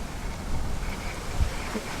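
Wind buffeting the microphone: an uneven, low rumbling noise.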